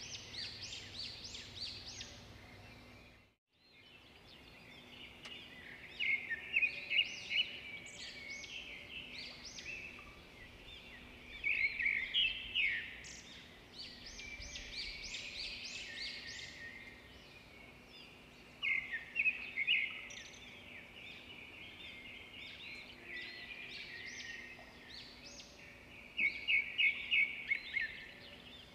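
Birds singing: quick high chirping phrases that come in louder flurries about every six seconds, over a faint steady hum. The sound cuts out completely for a moment about three seconds in.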